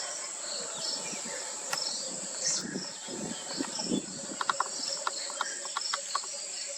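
Steady high-pitched insect chorus with a pulsing rhythm, joined by a run of short chirps about four to six seconds in.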